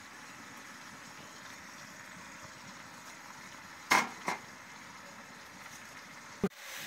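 Sliced onions and tomatoes frying in oil in a large metal cooking pot, a steady faint sizzle. Two sharp knocks come close together about four seconds in, with a short click near the end.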